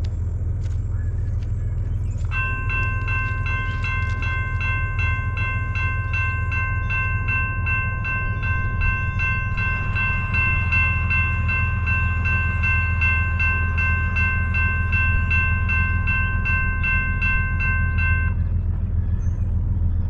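Grade-crossing warning bell ringing with rapid, evenly spaced strikes, starting about two seconds in and stopping shortly before the end as the crossing activates for an approaching train. A steady low rumble runs underneath.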